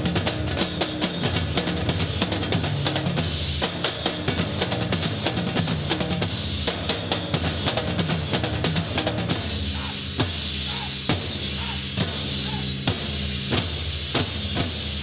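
A percussion ensemble playing a fast, driving rhythm on snare-type and large bass drums, over a low pitched bass line. About two-thirds of the way through, the beat opens out into heavy, accented hits about once a second.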